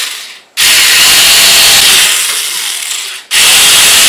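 A homemade cordless drill built from a 12 V gear motor, its twist bit boring into a white plastic sheet. It runs loudly in spurts, stopping briefly about half a second in and again just after three seconds, then starting up again each time.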